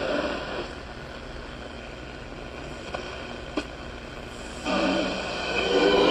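Radio receiver putting out a steady hiss of static with a couple of clicks, then music coming in about three-quarters of the way through.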